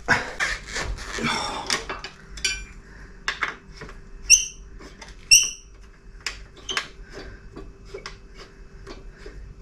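Metal pannier-mounting hardware clicking and clinking as bolts, spacers and a tubular carrier rail are worked into place by hand on a motorcycle's rear frame, with three short ringing metallic chimes in the first half. A faint steady hum runs underneath.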